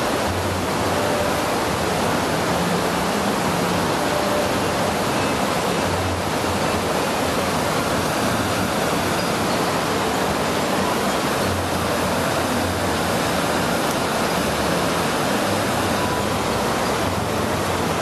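A row of ornamental fountain jets spouting and splashing down into river water: a steady, even rushing noise.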